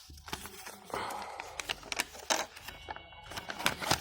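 Rustling and light clicks of a memory module's packaging and its folded paper manual being handled and opened.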